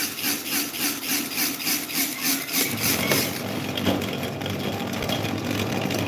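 Electric fans running: a rhythmic whooshing pulse about three times a second, joined about two and a half seconds in by a steady lower motor hum.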